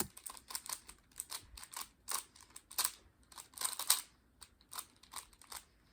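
A 3x3 Rubik's cube being turned quickly by hand: a fast, irregular run of plastic clicks and clacks as its layers snap round, stopping about five and a half seconds in.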